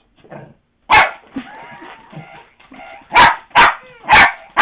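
Lhasa Apso puppy barking: one sharp bark about a second in, then three quick barks near the end.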